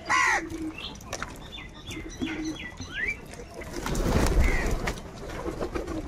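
House crows feeding in a flock: one harsh caw right at the start, then faint short chirps and a rising whistle from other birds. A rushing burst of noise, about a second long, comes around four seconds in.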